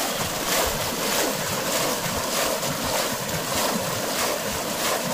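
Steady splashing and churning of shallow muddy floodwater as several people beat and stir it with their hands and legs.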